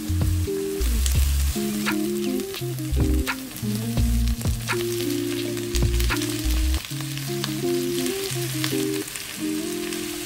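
Chopped onion, garlic and spring onion sizzling in oil and butter in a frying pan, stirred with a spatula, with sharp clicks as more chopped vegetables are tipped in. Background music with a low melodic line plays over it.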